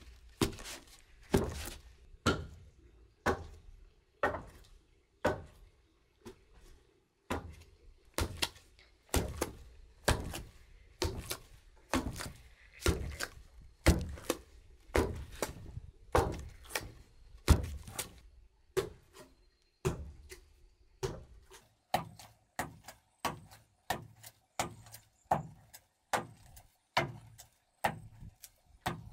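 Long wooden pestle pounding steamed sticky rice in a hollowed-log wooden mortar: dull, heavy thuds about once a second, turning after about two-thirds of the way into quicker, lighter strokes about twice a second.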